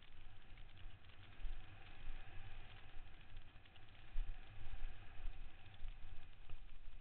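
Downhill mountain bike running down a dry dirt and gravel trail: constant rattling and clattering from the bike over the rough ground, with wind buffeting and rumbling on the microphone. A faint steady whine rises out of the noise for a few seconds in the middle.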